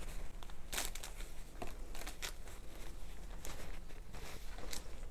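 Soft rustling and a few light clicks as a paper handkerchief and plastic-wrapped pocket tissue packs are handled and set down.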